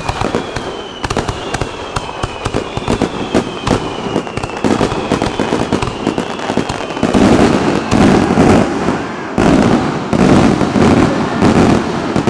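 Fireworks crackling and popping in rapid, dense cracks, with faint falling whistles through the first half. The cracking grows louder and thicker about seven seconds in.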